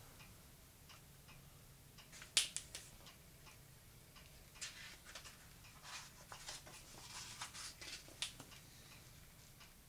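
Faint handling of a hardcover picture book: a sharp click about two seconds in, then a run of small clicks and paper rustles as a page is turned.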